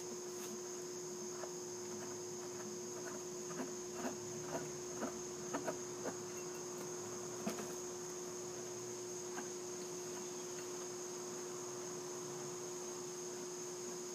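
Steady high-pitched trill of crickets with a low steady hum beneath it. A few light clicks and knocks come between about four and seven seconds in, as the mixer's wooden frame and steel shaft are handled.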